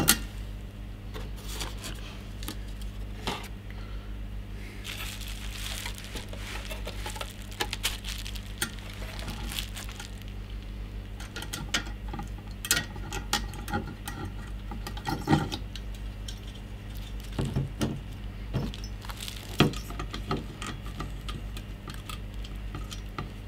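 Scattered small clicks, clinks and rustles of a CPU tower cooler and its metal mounting hardware being handled, with a few louder knocks about midway and a low steady hum underneath.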